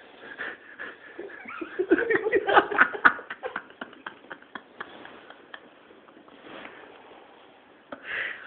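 Heavy snoring from a sleeper, with a loud, rasping snore about two seconds in and a quieter breath near the end.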